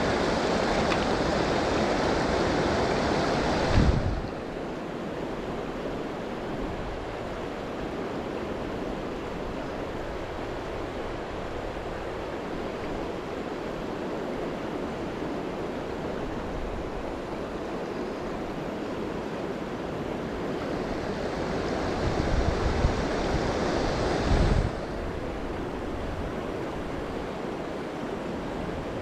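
Steady rushing of a river current, a continuous wash of water. It turns quieter and duller about four seconds in and brighter again near the end, with a few low bumps on the microphone around those changes.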